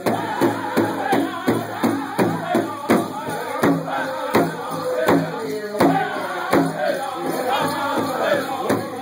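A powwow drum group: several men strike one large hide drum in unison with padded sticks in a steady, fast beat, about three strokes a second, while singing together in chorus.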